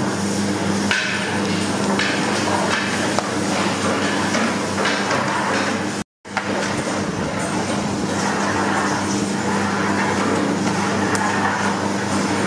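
Long-handled iron ladle stirring and sloshing liquid in a large aluminium pan, with repeated knocks and clatter against the metal, over a steady low hum.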